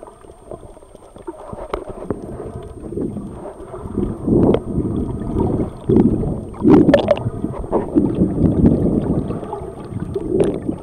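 Muffled water noise heard through a camera held underwater: swishing and bubbling as snorkelers kick and move past, louder from about four seconds in, with a few short sharp clicks.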